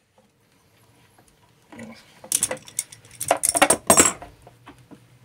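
Metallic clinks and knocks of an adjustable wrench and brass hose fittings being handled while a pump hose connection is worked on, a cluster of sharp clatters starting about two seconds in.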